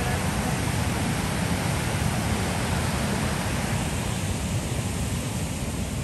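Steady rushing of water from Low Force waterfall on the River Tees.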